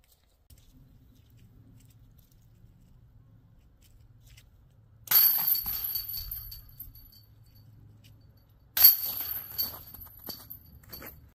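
Disc golf basket chains rattling as a disc strikes them, twice, about four seconds apart. Each is a sudden metallic clash that jangles away over a second or two.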